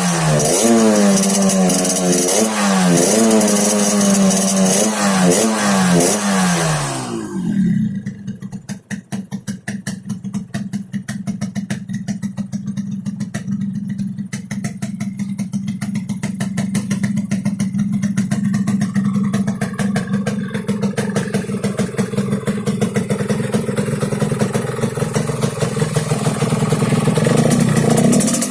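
Yamaha RX-King's two-stroke single-cylinder engine, its exhaust set up for a growling 'ngorok' note, revved in repeated quick throttle blips for about seven seconds. It then drops back to a steady, pulsing idle that slowly grows a little louder toward the end.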